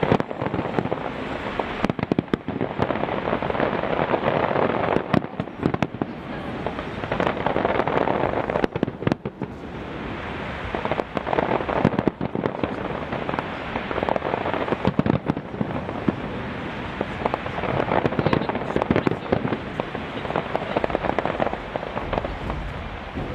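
A large fireworks display: dense, continuous crackling and popping of many bursting shells, swelling and easing in waves every few seconds.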